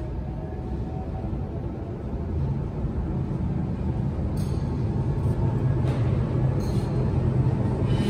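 FOREL 2200A6 vertical glass washing machine running: a steady low mechanical hum that grows louder about two and a half seconds in.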